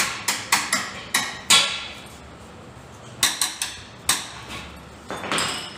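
Sharp metallic clinks and taps of tools and parts being handled at a motorcycle's front end, a quick run of them in the first two seconds and a few scattered ones later, with a brief rush of noise near the end.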